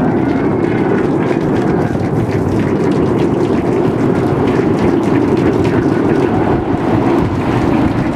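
Roar of the SpaceX Super Heavy booster's 33 Raptor engines in the first seconds after liftoff: a loud, steady rumble with a crackle running through it.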